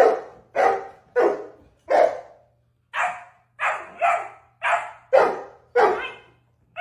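A dog barking repeatedly, about ten loud barks one after another, roughly two a second, with a brief pause between the fourth and fifth.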